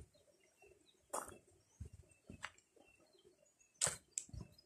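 Faint bird chirps and calls, with a few crunching footsteps on a dirt and gravel path; the loudest steps come about a second in and again near the end.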